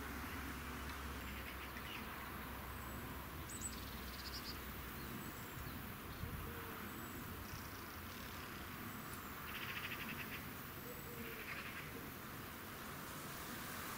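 Quiet outdoor ambience with a few short, high chirping calls scattered through it, from small wild creatures in the garden.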